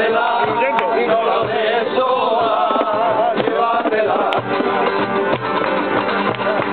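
Men singing a song together, accompanied by three strummed nylon-string acoustic guitars.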